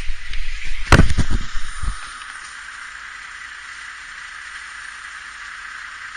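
Handling noise from a small camera being moved and set down on a wooden railing: rustling and a knock about a second in. After that a steady, even hiss.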